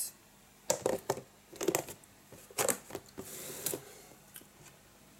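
Handling noise: a handful of light knocks and clicks, with a brief hiss a little after three seconds.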